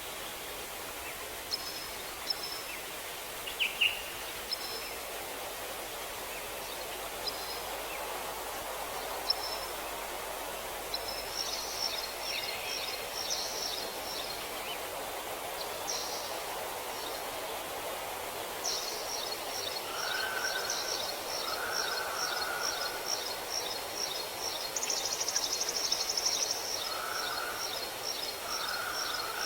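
Forest ambience: a steady rushing hiss under birds calling, with scattered short high chirps, then a fast run of repeated high notes from about two-thirds of the way in, joined by a few lower, shorter calls.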